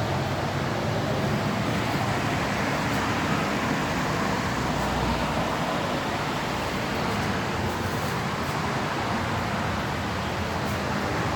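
Car exhaust and engine running at steady revs with road noise, a steady low drone under an even rush of noise. The exhaust is very loud and still noisy after a repair.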